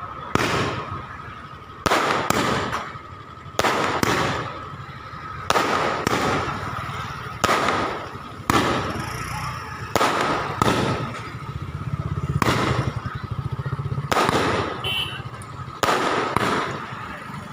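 Firecrackers going off one after another, about fifteen loud bangs spaced a second or so apart, each trailing off, with a steady high hum underneath.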